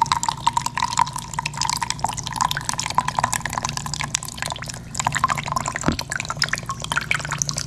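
Coconut water running from a hole punched in a green coconut into a plastic mug, a thin stream splashing and trickling into the liquid as it fills.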